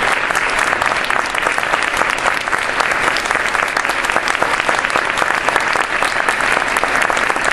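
Audience applauding: a steady, dense spread of many hand claps.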